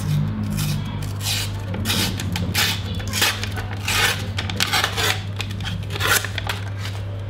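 Paper label being peeled and torn off a tin can: a run of irregular crackling rips and rustles, the sharpest about three seconds in and again near six seconds.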